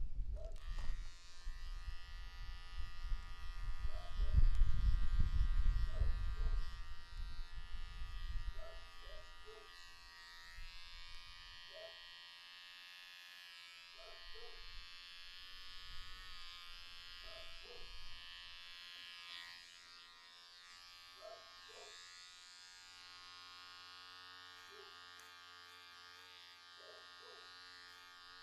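Cordless electric hair clipper running with a steady buzz while it trims a beard. A low rumble is loud over the first several seconds, then dies away.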